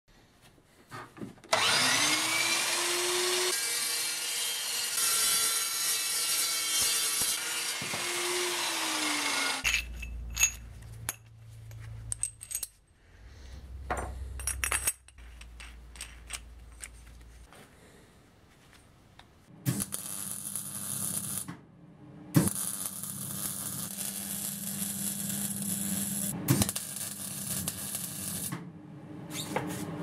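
Power tools working steel. A motor spins up about two seconds in, runs steadily for about seven seconds and winds down. Scattered knocks and a low hum follow, and from about twenty seconds a steady, noisy tool runs with occasional sharp clicks.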